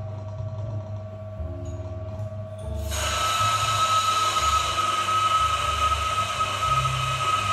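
Electric burr coffee grinder switched on about three seconds in, then running steadily with a high whine as it grinds coffee beans.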